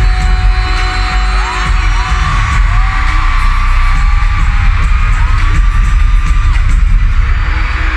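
Live pop song over concert loudspeakers: a heavy bass beat with a sung vocal line that slides up into long held notes, and a crowd shouting beneath it.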